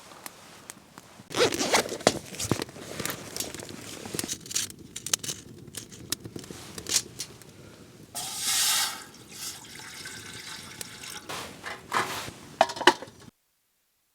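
Water being handled and poured in camp cookware: drips and splashes with many small clinks and knocks, and one steady pour lasting about a second a little past the middle. The sound cuts off abruptly near the end.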